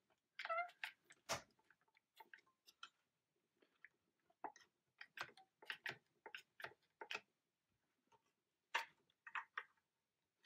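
Faint, irregular clicking of a one-handed bar clamp's trigger being squeezed again and again, the clamp reversed as a spreader to push a chair joint apart.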